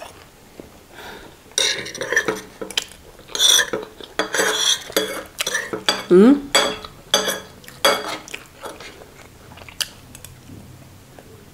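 Metal spoons and forks clinking and scraping against ceramic plates as rice is scooped up, in a run of short, sharp clicks. A brief rising vocal sound comes about six seconds in.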